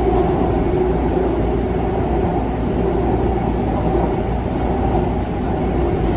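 Seoul Subway Line 2 train running across a river bridge, heard from inside the car as a steady, even running noise of wheels on the rails.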